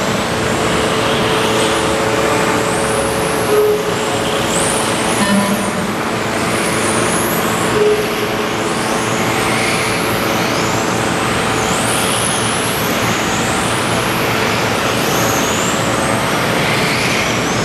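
A pack of electric RC racing cars running laps: their brushless motors whine high, rising and falling again and again as the cars accelerate and brake, over a steady din from the track.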